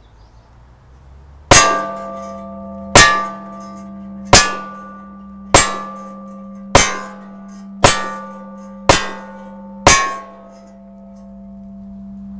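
Eight 9mm pistol shots from a Smith & Wesson M&P Shield, each striking a quarter-inch-thick scrap steel plate target that rings like a bell. The shots come about every one to one and a half seconds, and the plate keeps ringing after the last hit.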